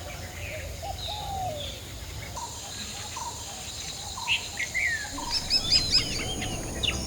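Several birds calling with short chirps and whistles, busiest about five to six seconds in, over a steady high-pitched hum that starts about two seconds in.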